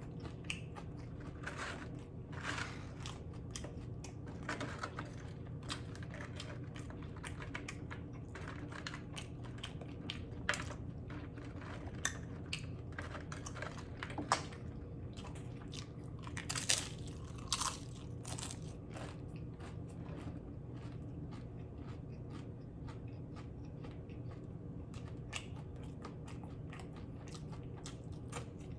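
Close-miked chewing and crunching of loaded steak nachos: tortilla chips cracking between the teeth in quick, irregular crunches, fewer and softer near the end.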